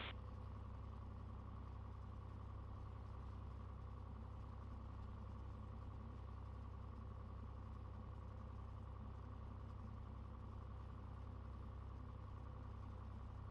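Cessna 182 Skylane's piston engine running steadily at low power, a faint even low drone with no change in pitch.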